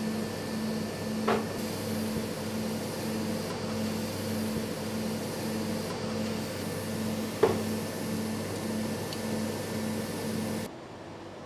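Steady machine hum with a low tone pulsing about two and a half times a second, broken by two sharp clicks. The sound drops abruptly near the end.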